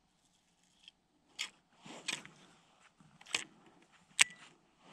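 Handling noise from a baitcasting reel and rod worked in gloved hands: a few irregular sharp clicks and crunches, the sharpest near the end with a short metallic ring.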